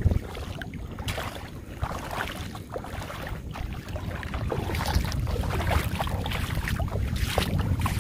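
Wind buffeting the microphone as a low rumble that grows stronger about halfway through, with splashing footsteps wading through shallow water and short scattered splashes and drips.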